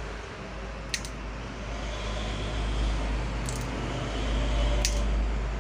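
Scissors snipping small pieces off metal taken from a dry-cell battery: three short, sharp snips, about a second, three and a half and five seconds in, over a steady low rumble.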